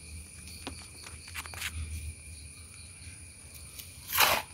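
Hands working potting soil around a plant cutting in a plastic pot: faint rustles and small clicks, then a louder brushing scrape a little after four seconds in.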